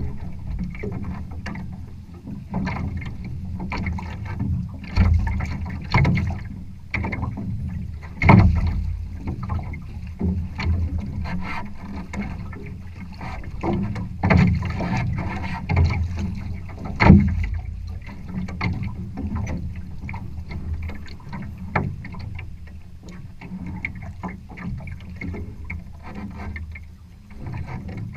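Water splashing and slapping against the hull of a Challenger trimaran under sail, in irregular strokes over a steady low rumble; the loudest splashes come about eight and seventeen seconds in.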